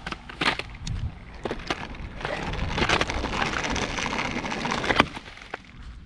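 Footsteps and a kick scooter moving across a grass lawn: uneven rustling and crackling with scattered clicks and knocks, denser through the middle, and a sharp click about five seconds in.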